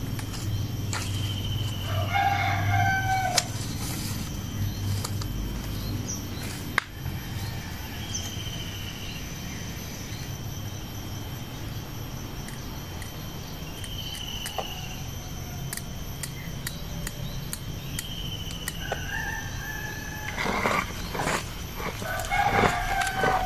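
Birds calling: a long pitched call about two seconds in and more calls near the end, with short high chirps now and then. A few sharp clicks cluster near the end.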